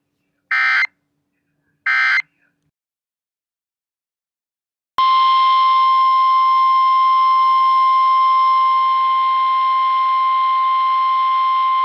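NOAA Weather Radio alert signalling: two short warbling data bursts of the SAME digital code, the end-of-message marker for the tornado watch just read. After about three seconds of silence comes the steady, piercing 1050 Hz warning alarm tone that announces the next alert, a tornado warning.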